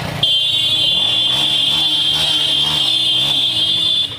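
Motorcycle horn held down in one long, steady, high-pitched blast that starts just after the beginning and cuts off suddenly near the end, over the motorcycle engine running at low speed.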